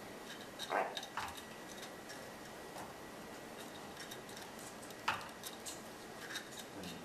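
African grey parrot making quiet scattered clicks and a few brief squeaks, the loudest about a second in and about five seconds in.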